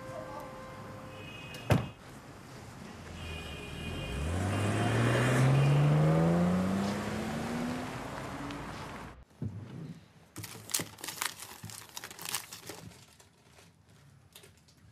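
A car door shuts with one sharp thunk, then the black Audi sedan drives off, its engine note rising steadily as it accelerates away. After a cut come several light clicks and rustles as things are handled in a drawer.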